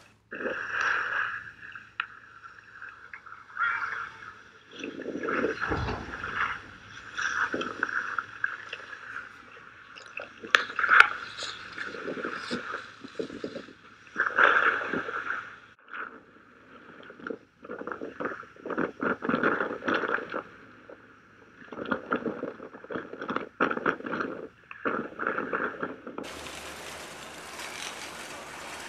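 Skis scraping and hissing across hard-packed groomed snow, swelling and fading with each turn. Near the end this gives way to a steady, even hiss.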